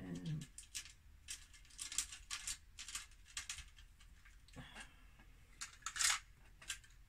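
Makeup items being rummaged through and handled: small hard objects clicking, clinking and tapping in quick, irregular bursts.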